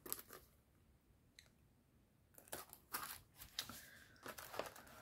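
Plastic die packaging and a kraft cardboard envelope being handled, crinkling and rustling. A few short crinkles come at the start, then a quiet pause, then denser crackling and rustling from about two and a half seconds in.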